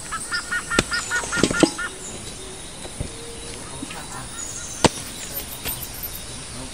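Axe striking a log: several sharp, separate chops on wood, the loudest about five seconds in. During the first two seconds a bird calls in a quick run of about eight short notes.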